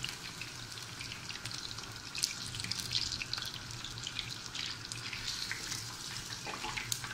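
Chicken pieces frying in a pan of hot oil: a steady sizzle with scattered small crackles and pops.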